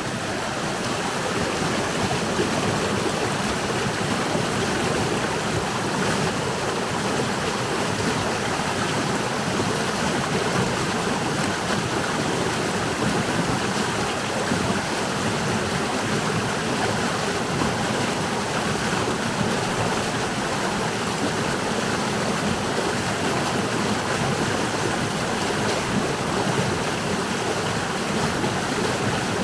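Flowing water running steadily in a stream, a constant rushing sound with no breaks.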